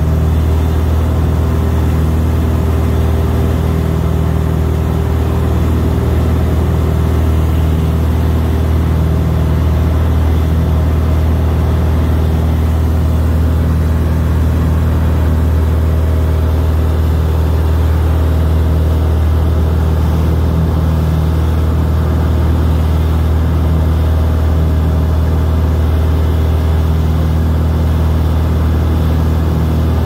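Steady, loud engine drone of a sightseeing aircraft heard from inside the cabin, an unchanging low hum with a few higher steady tones over it.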